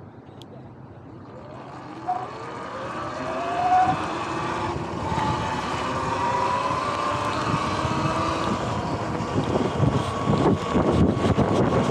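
Sur-Ron X electric dirt bike pulling away from a stop: its motor whine rises in pitch over the first few seconds, then holds as a steady whine. Wind noise on the microphone grows as speed builds and buffets near the end.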